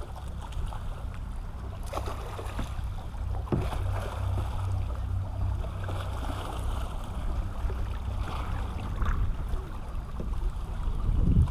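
A small fishing boat's motor running with a steady low hum, with water splashing and lapping against the hull.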